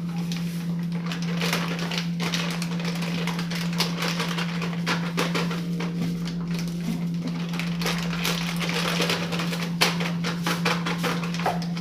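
Irregular clicks, taps and knocks of kitchen utensils and containers being handled while cake ingredients are added, over a steady low hum.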